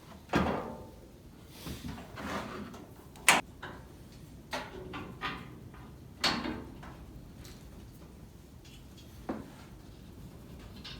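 A series of irregular knocks and clunks with short scraping rattles, about eight in all, the sharpest a little past three seconds in: objects being handled and set down on a workbench.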